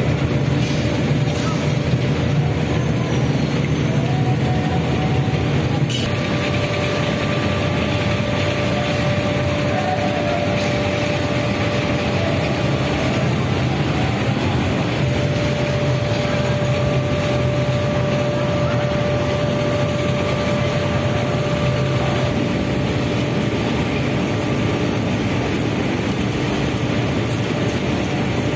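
Steady mechanical din of glass bangle factory machinery, fans and furnaces running, with a steady motor hum through it.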